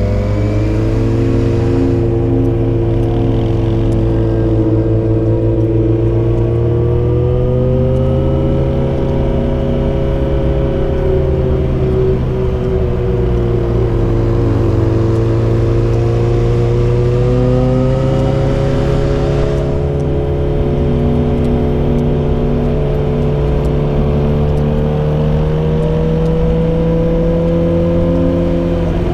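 Yamaha XJ6's inline-four engine through a Dominator GP full exhaust system with its dB killer fitted, running under steady throttle while the bike cruises. The engine note eases down a little in the middle and climbs back up, with no gear change.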